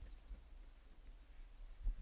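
Faint, uneven low rumble with a few soft low thumps, the strongest near the end: wind buffeting the microphone.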